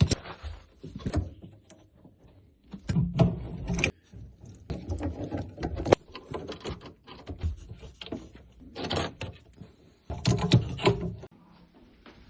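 Irregular clicks, knocks and short scraping rattles of plumbing fittings and hand tools being worked, as on a shower hose and isolation valve being refitted.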